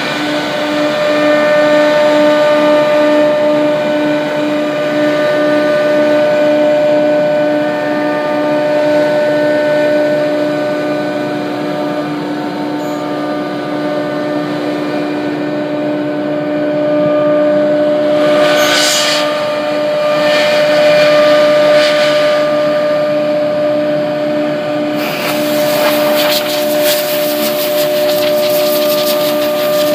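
MK1325C2 double-spindle CNC router running and cutting grooves in a board: a steady whine of several held tones from the spindles over the hiss of the cutter and dust extraction. There is a short rush of noise about two-thirds of the way through, and a harsher, crackling cutting noise through the last few seconds.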